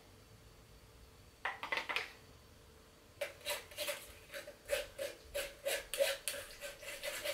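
A spoon scraping and pressing blended apple purée through a fine-mesh metal sieve. A few scrapes come about a second and a half in, and from about three seconds in there is a run of short rasping strokes, several a second.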